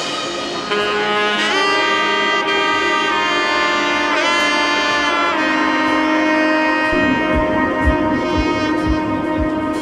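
Background music: a held, pitch-bending lead melody over sustained chords, with a low beat coming in about seven seconds in.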